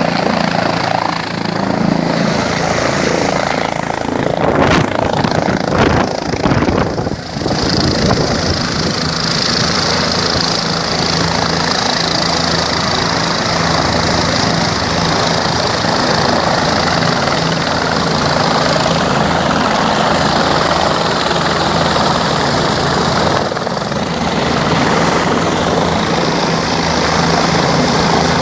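Helicopter running with a steady low drone. A steady high whine joins in about eight seconds in.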